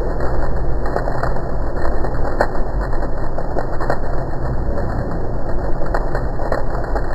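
Probat coffee roaster's cooling tray running, its stirring arms sweeping a batch of just-roasted coffee beans around. A steady machine hum under a continuous rustle of beans, with a few sharp clicks scattered through.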